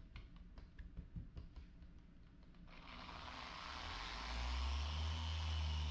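A few light clicks and taps, then a dual-action car polisher starts about three seconds in and builds to a steady low running hum, its microfiber pad working a one-step compound over the paint of the hood.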